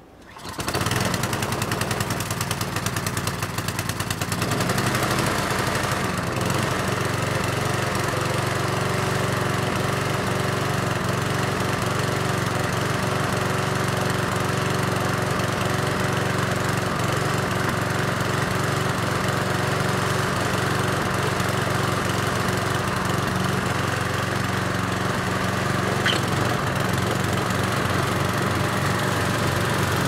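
Two-stage snowblower's engine starts about half a second in and then runs steadily. A single faint click comes near the end.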